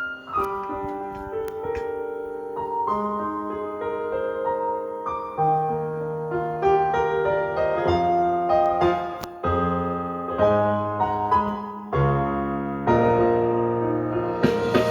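Instrumental piano music: a slow passage of held chords and single melody notes, each new note or chord struck every half second to a second.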